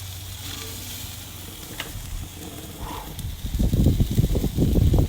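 Crayfish in butter sizzling faintly on the barbecue hotplate, then loud irregular low rumbling on the microphone for the last second and a half.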